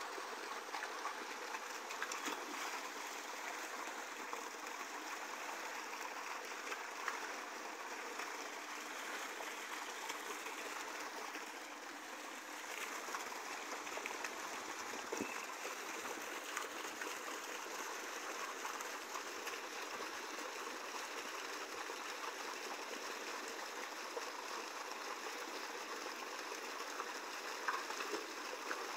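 Water rushing and splashing steadily, as of a fast stream or small waterfall.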